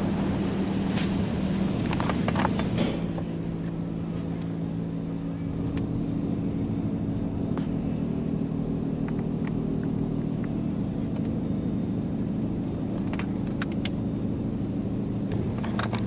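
Soft-touch car wash brushes and their drive motors running, heard from inside the truck's cabin: a steady low hum with scattered light taps and clicks as the brushes work the back of the truck.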